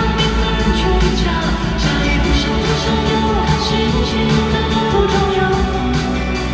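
Loud live pop band music with a steady drum beat, played through a concert sound system.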